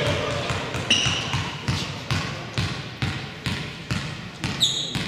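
A basketball bouncing repeatedly on a court, about once a second, with short sneaker squeaks about a second in and near the end.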